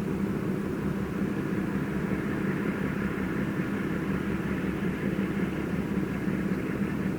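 Steady mechanical drone from building equipment, the constant "go" roar from the hotel behind, with a held hum and low rumble that do not change.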